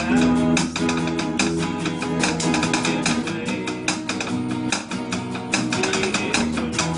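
Acoustic guitars strumming a rock song in a steady, even rhythm, played live by a small band.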